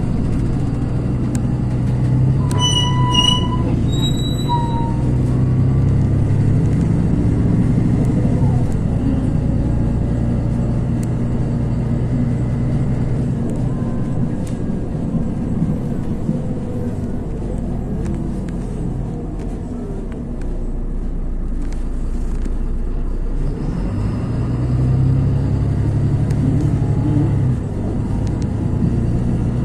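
LiAZ 6213.22 articulated city bus heard from inside while under way: steady diesel engine hum and road rumble, easing off around the middle and picking up again near the end. A short electronic beep sounds about three seconds in.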